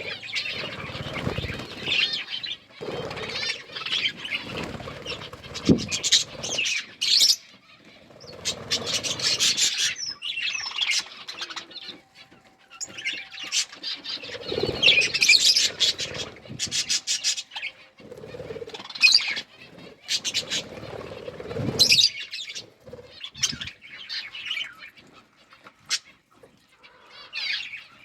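Pet budgerigars chirping and chattering in repeated bursts of fast, high twittering, with short pauses between.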